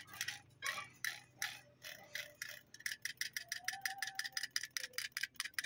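Rapid light metallic clicking from a removed Toyota Kijang ignition distributor as its shaft is turned back and forth by hand, getting quicker about halfway through. The rotor shaft has up-and-down play, which the mechanic says makes the distributor knock.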